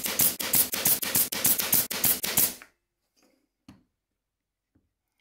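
Ridgid pneumatic 23-gauge pin nailer firing pins in quick succession, about four shots a second, stopping a little past halfway; then two faint knocks.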